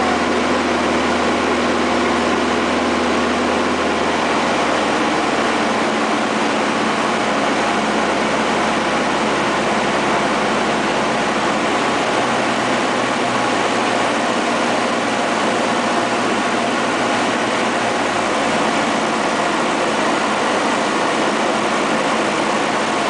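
Van's RV-9's piston engine and propeller droning steadily inside the cockpit with airflow noise, on the approach to land; the engine note shifts lower about four to six seconds in.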